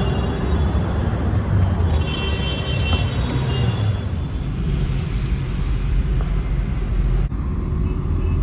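City road traffic: a steady low rumble of vehicle engines and tyre noise.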